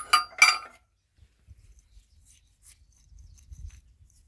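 Two sharp, ringing metal clinks about a third of a second apart, as metal parts are knocked together, followed by faint handling noises.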